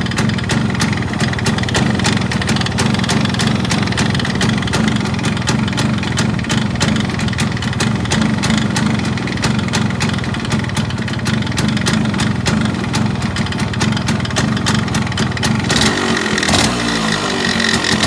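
Yamaha RX135's two-stroke single-cylinder engine idling with a dense, fast rattling tick over its hum, the engine noise presented as a fault. Near the end the idle changes and the engine begins to rev up.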